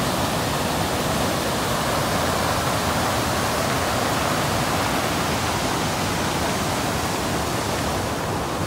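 Muddy river in flood after days of heavy rain, rushing over a rocky drop in a steady, loud rush of water.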